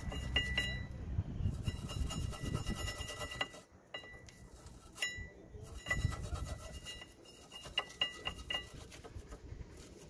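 Metal hand tools scraping and brushing the rear brake caliper bracket to clean the pad guide rails, with sharp metallic clinks and clicks as the tool knocks against the bracket. A low rumble fills the first few seconds, then drops away.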